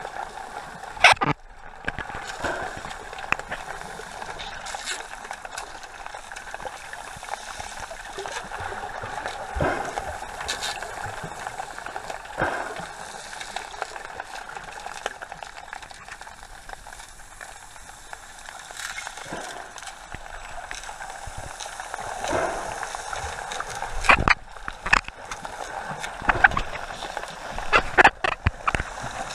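Sea water sloshing and gurgling close by, with irregular sharp splashes that come more often and louder in the last few seconds.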